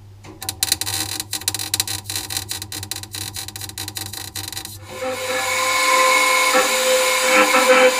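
MIG welder plug welding steel fuel tank strap extensions: an irregular, sputtering crackle for about four and a half seconds, with brief breaks between welds. Then a steady whirring power tool with a hiss takes over.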